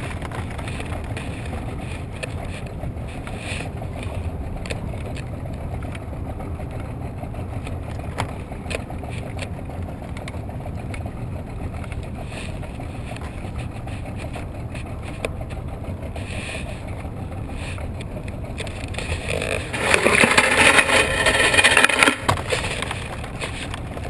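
Boat motor running steadily at low speed, a low hum throughout. About twenty seconds in, a louder burst of noise lasts a couple of seconds.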